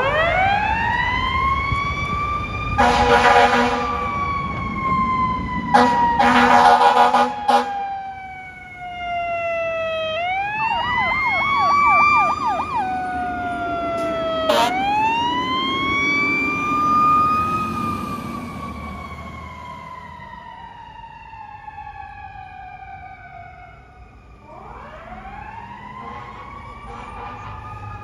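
Fire apparatus responding with sirens: a siren winds up quickly and falls slowly in pitch, broken by two long air horn blasts, then a stretch of fast electronic yelp. The siren winds up and coasts down again, and another wind-up begins near the end.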